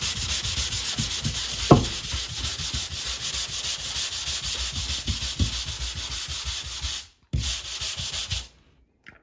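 Handheld drywall sander with 120-grit sanding mesh rubbed quickly back and forth over dried joint compound, a steady run of rapid strokes. A single sharp knock comes about two seconds in; the sanding breaks off for a moment near seven seconds and stops about eight and a half seconds in.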